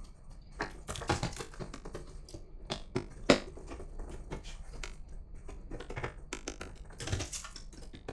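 Irregular light clicks and taps of hard plastic parts being handled, as an infrared sensor strip is lined up against a litter box's plastic housing, with one sharper click about three seconds in.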